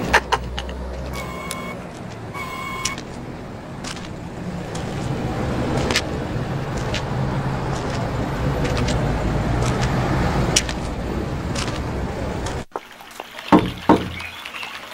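Street ambience: a steady din of traffic with a low hum, with two short electronic beeps a little over a second apart near the start. Near the end it cuts off suddenly to a quiet room, where two sharp clicks of a door being opened sound.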